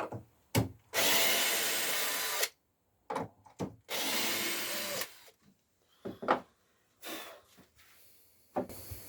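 A power tool working wood runs in two bursts of about a second and a half each, both stopping abruptly, with short clicks and knocks between and after them.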